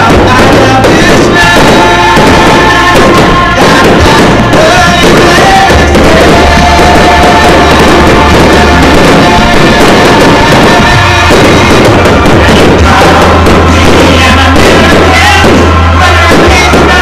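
Loud show music with a heavy, sustained bass line, with firework bursts banging over it.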